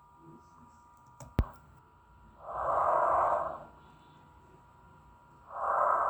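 A person breathing deeply and slowly through an open mouth for lung auscultation: two long, breathy rushes of air about three seconds apart. A single sharp click comes about a second and a half in.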